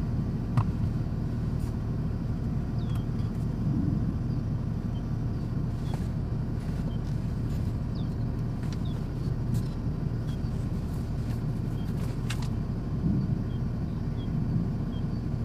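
Strong gusty wind buffeting the microphone: a steady low rumble throughout, with faint short high chirps now and then.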